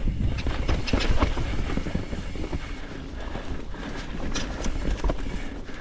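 Mountain bike riding fast down a rooty dirt trail: knobby tyres rumbling over the ground, with frequent sharp rattles and knocks from the bike as it hits roots and bumps.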